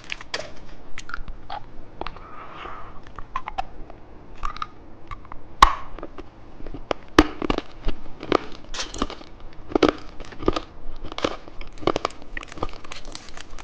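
Close-up crunching and chewing of a hard-candy lollipop, with crinkling of its plastic wrapper. There are irregular sharp cracks and crackles throughout.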